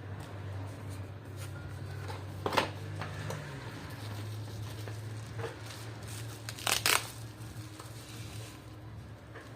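Small tools and parts clicking and tapping during an iPhone 12 Pro screen repair, with one sharp click a few seconds in and a quick double click later, over a steady low hum.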